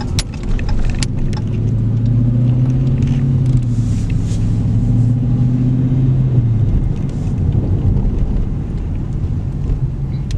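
Engine and road noise of a moving car, heard from inside the cabin. A low engine drone holds steady, then drops away about six and a half seconds in, leaving the road rumble.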